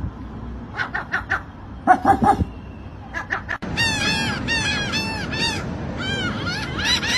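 Seagull calling: a few short calls in the first half, then after a sudden break a loud, rapid run of calls, several a second, each rising and falling in pitch.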